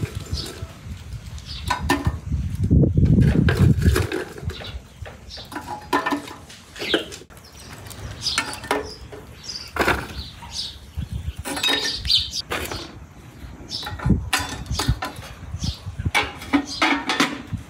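Scattered metal clinks and knocks as a samovar is set up by hand: its top cap taken off and a metal chimney pipe fitted on. A low rumble lasts about a second and a half, around three seconds in.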